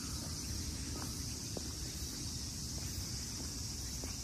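Footsteps on an asphalt path at a steady walking pace, about one step every 0.6 seconds, over a continuous high drone of insects and a low rumble of wind on the microphone.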